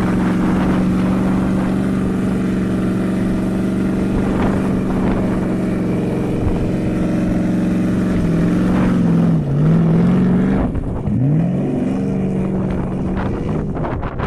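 Porsche Cayenne V8 engine running at a steady pitch as the SUV slides in circles on wet sand and mud. From about eight seconds in, the revs drop and rise several times.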